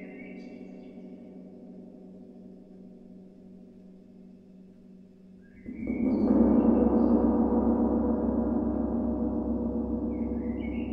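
Large gong ringing: a long tone fades away, then a little past halfway the gong swells up again loudly with a deep hum and rings on, slowly dying away. Short high gliding tones sound over it near the start, with the new swell, and near the end.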